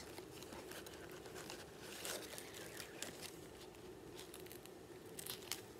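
Faint, scattered crinkling and rustling of a shiny gift bag being handled and opened, a few slightly louder crackles about two seconds in and near the end.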